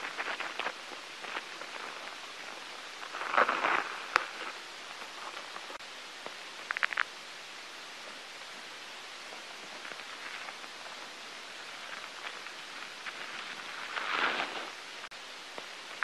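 Steady hiss with light rustling and scattered crackles. Louder rustling swells come about three seconds in and again near the end, with a quick run of three clicks around the middle.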